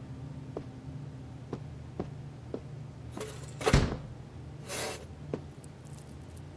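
Quiet small-room sounds of someone walking up and sitting down: a few soft footsteps, one loud thump a little past halfway, and a rustling shuffle as he settles, over a low steady hum.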